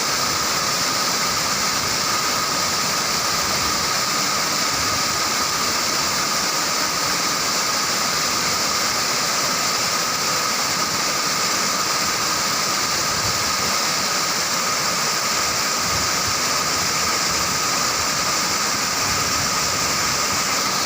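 Waterfall: a steady, unbroken rush of falling water, loud and hissing.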